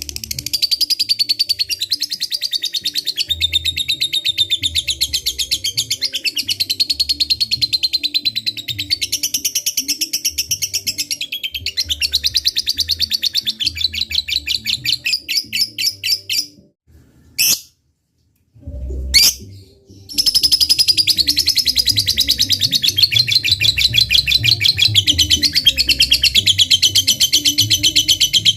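Fighter lovebird singing its long 'ngekek' chatter, a very rapid, high-pitched trill of repeated notes. The trill breaks off a little past the middle, with a couple of short notes, then resumes.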